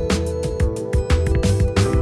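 Background music with a quick steady beat, about four hits a second, over held tones.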